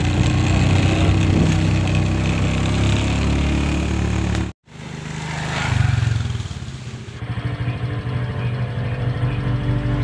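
Small motorcycle engine running steadily while riding. After a short break, a motorbike passes close by, getting louder and then fading. From about seven seconds in, a motorbike engine hums steadily, heard from farther off.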